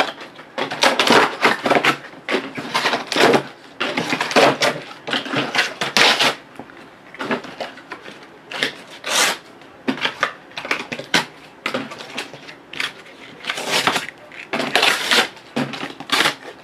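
Trading cards and their packaging being handled and opened by hand: a long run of irregular rustling, clicking and scraping bursts with short pauses between.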